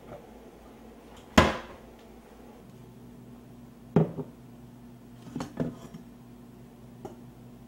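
Kitchen handling sounds: a sharp knock about a second and a half in, then a ceramic mug set down on a countertop about four seconds in, followed by a few clicks as a stainless-steel carafe is lifted out of a drip coffee maker.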